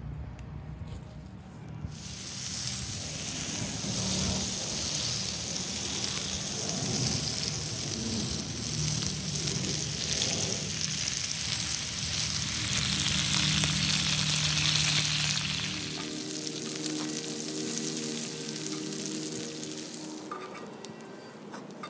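Raw bacon strips sizzling on a hot flat-top griddle. The sizzle starts abruptly about two seconds in and thins out near the end.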